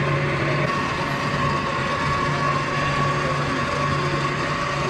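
Electric chili-grinding mill running, with a steady low hum and a thin steady whine above it.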